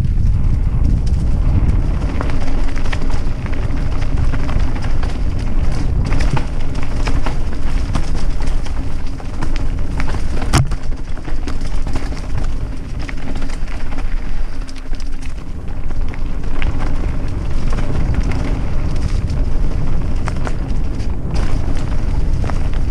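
Wind noise buffeting an action camera's microphone during a fast mountain-bike descent on a dirt trail, with tyre rumble and the bike rattling over bumps. One sharp knock comes about ten and a half seconds in.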